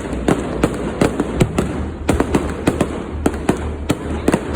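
Fireworks going off in a fast, irregular run of sharp bangs and crackles, several a second, over a low steady rumble.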